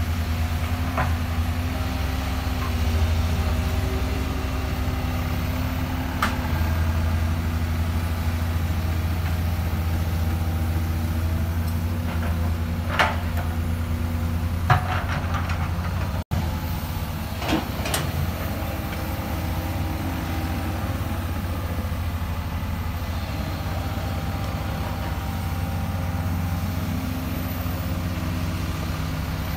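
Hydraulic excavator's diesel engine running steadily at work, its pitch shifting slightly now and then. A few sharp knocks come through past the middle.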